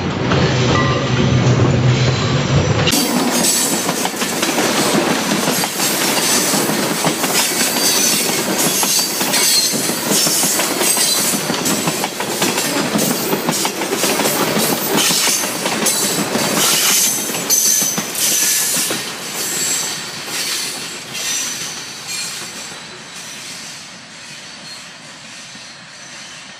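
Diesel freight train passing: the locomotive's engine hum for the first few seconds, then a string of loaded hopper cars rolling by with steady wheel clatter and a thin, high wheel squeal. The sound fades away over the last ten seconds as the train recedes.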